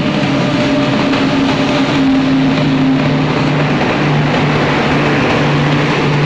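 Express train's LHB coaches running past close along the platform: a loud, steady rush of wheels on rail with a low droning hum throughout.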